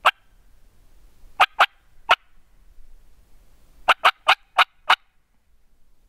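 Sharp turkey-hen clucks blown on a mouth turkey call, nine loud notes in irregular bunches: one, a quick pair, one more, then a fast run of five. Turkey hunters call this "cutting", an excited-hen call used to draw a gobble from a tom.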